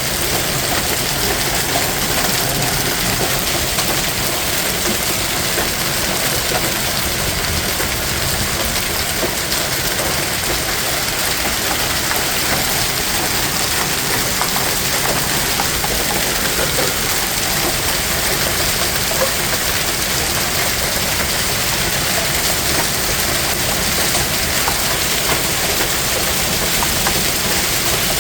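Heavy hail falling, a dense, steady clatter of hailstones striking the ground and nearby surfaces.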